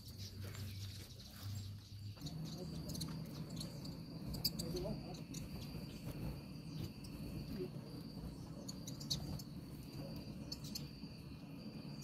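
Steady high insect trill, with scattered short chirps and clicks from a flock of common waxbills landing and feeding on grain. A low drone comes in about two seconds in.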